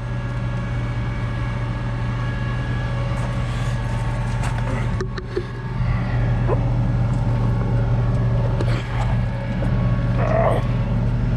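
Tractor engine running steadily, a constant low hum that does not change pitch.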